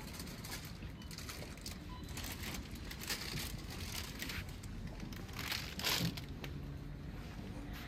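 Irregular rustling and crinkling over a low steady rumble, with the loudest burst about six seconds in.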